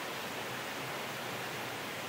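Lumsdale waterfall pouring down over rocks into a pool: a steady, even rush of falling water.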